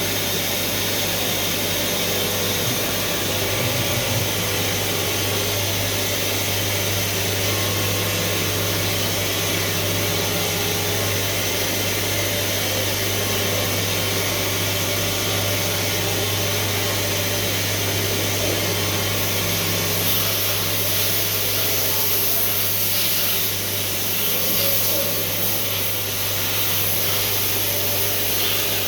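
Doosan T4000 CNC machine running with a steady, even hum under a high hiss. The hiss grows stronger and more uneven about two-thirds of the way through.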